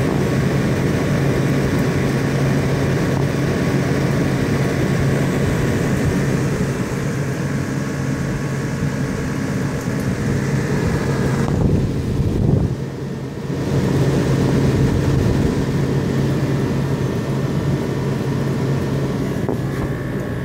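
Emerson Quiet Kool 19,000 BTU window air conditioner running, heard from its outdoor side: a rotary compressor's steady low hum under the even rush of the condenser fan, a mean-sounding compressor for a rotary. The sound is briefly muffled about twelve seconds in.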